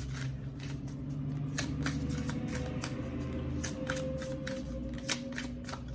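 Oracle cards being shuffled by hand: a quick run of soft card-on-card clicks and slaps, with a low steady tone underneath.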